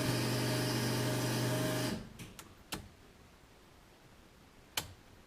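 A small electric motor runs with a steady hum and whine for about two seconds, then stops abruptly. A few sharp clicks follow, one more near the end.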